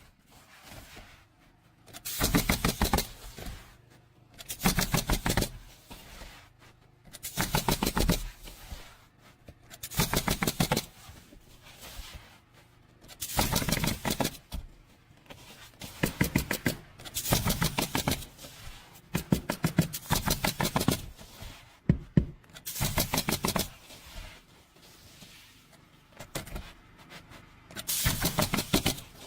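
A handheld power tool run in repeated short bursts of about a second each, with a fast rattling hammer, every two to three seconds.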